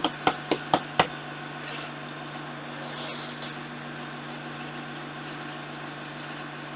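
Computer keys clicking about four times a second, stopping after about a second, over a steady low hum.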